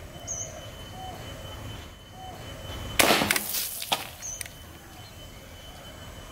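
Airsoft Glock 19X pistol fired once about three seconds in: a single sharp shot with a short tail, followed by a few lighter clicks.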